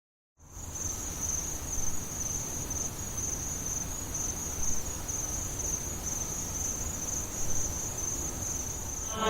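Crickets chirping in a steady high-pitched chorus over a faint low hum, starting about half a second in.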